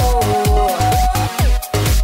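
Upbeat electronic dance music with a steady, regular beat and a long held melodic note over the first second.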